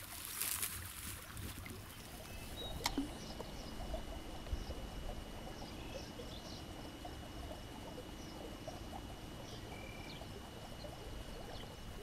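Quiet creekside ambience: a low rumble of wind on the microphone, faint trickling water and scattered faint chirps. There is one sharp click about three seconds in, followed by a thin, steady high tone.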